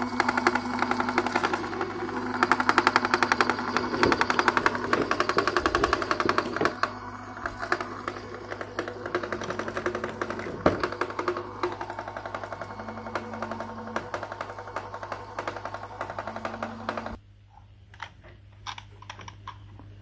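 A battery-operated miniature toy appliance running with a rapid, even clatter of clicks over music. The clatter stops suddenly about three-quarters of the way through, leaving a few separate handling clicks.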